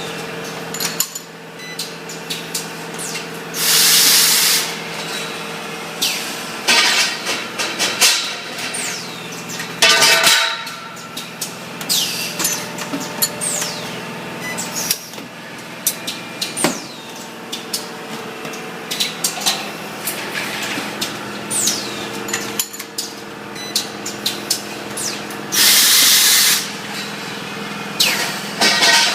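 Automatic resistance spot-welding machine for galvanized fence tubes at work. A steady electrical hum runs under repeated metallic clanks and clicks, and loud hisses of about a second each come about four seconds in and again near the end.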